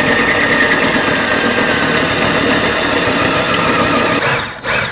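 Power drill running under load, drilling out a spot weld in the car body's sheet-metal quarter panel; its whine sags slightly in pitch as it bites. It stops about four seconds in, then starts again briefly near the end.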